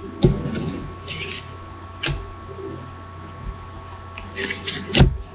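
Trading cards being handled and flipped: brief papery swishes as cards slide over one another, and a few light taps, the loudest near the end. A steady electrical hum runs underneath.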